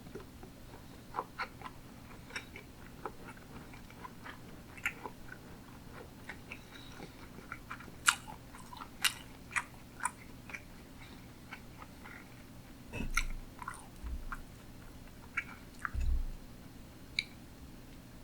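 Close-miked chewing of sushi: soft, wet mouth clicks and smacks scattered irregularly, with two short low thumps about two-thirds of the way through.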